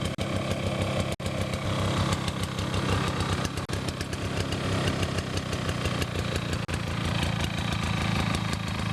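Toro two-cycle lawnmower's Suzuki engine running steadily, its throttle lever set just short of the choke position.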